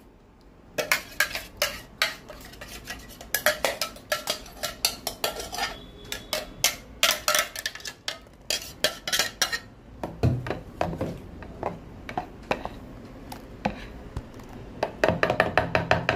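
Steel spoon clinking and scraping against the inside of a steel mixer-grinder jar, in quick runs of taps, as ground coriander chutney is scraped out. Near the end, quicker clinks as a spoon stirs the chutney in a plastic bowl.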